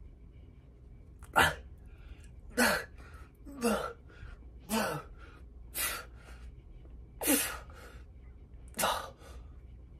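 A man's forceful exhalations with a grunt that drops in pitch, seven of them about a second apart. They come one with each rep of a one-arm lateral raise and are the sound of his effort.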